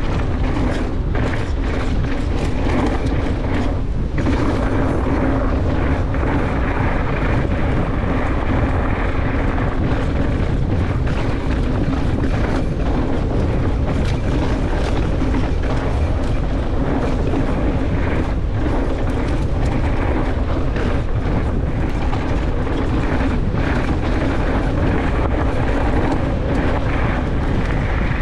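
Mountain bike running fast down a dry dirt trail: heavy wind rush on the microphone over the rumble of the tyres, with frequent clicks and rattles from the bike over bumps. A steady low hum comes in about four seconds in.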